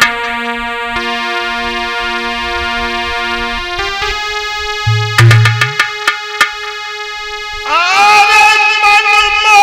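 Devotional music: an electronic keyboard holds sustained chords over a pulsing low note. A few drum hits land about halfway through, and near the end a man's voice starts singing.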